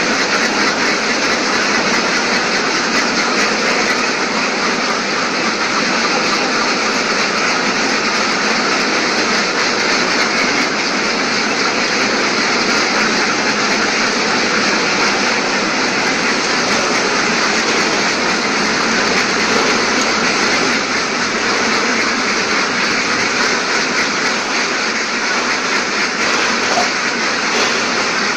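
Steady loud mechanical din of machinery running in a caged duck house, an even hiss-like noise that holds without a break.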